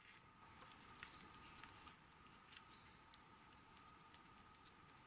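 Near silence: faint outdoor ambience with a few scattered faint ticks and a brief thin high whistle about a second in.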